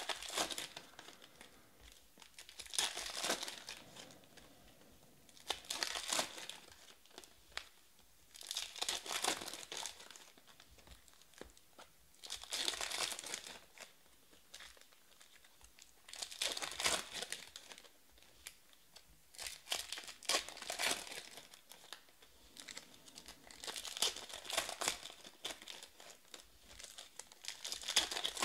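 Foil packs of 2017-18 Panini Status Basketball cards crinkling and tearing as they are opened by hand, and the cards shuffled through, in about eight short bursts a few seconds apart.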